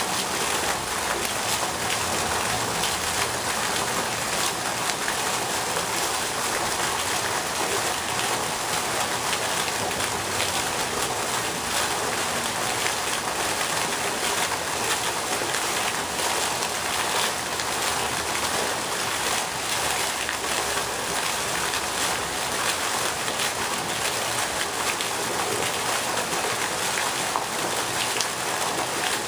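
Pond fountain jet spraying, its water falling back and splashing onto the pond surface in a steady, even rush like rain.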